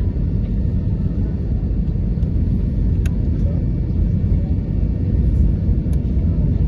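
Steady low rumble inside the cabin of an Airbus A320 on the ground after landing, with two faint clicks about three and six seconds in.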